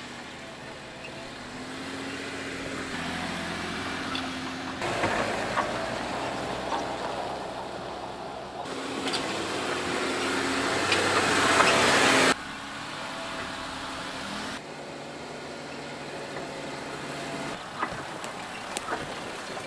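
Jeep Wrangler driving slowly over a sandy dirt trail and dry grass, its engine running under load with the noise of the tyres on the ground. The sound comes in several short clips that cut abruptly from one to the next, building to the loudest stretch a little after halfway, which stops suddenly.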